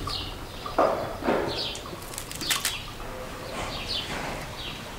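Rustling and short cuts as a knife slices through a bunch of fresh parsley held in the hand, with brief bird chirps in the background.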